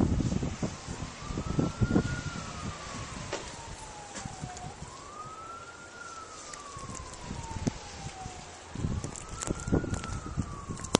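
Emergency-vehicle siren wailing: a quick rise in pitch followed by a long, slow fall, repeating about every four seconds, three times. Low rumbles and knocks come and go beneath it.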